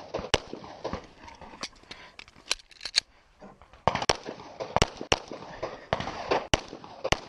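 A string of about ten semi-automatic pistol shots fired close by, unevenly spaced roughly half a second to a second apart.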